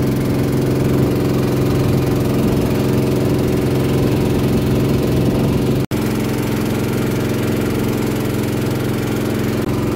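Motor launch's engine running steadily under way, with a momentary break in the sound about six seconds in.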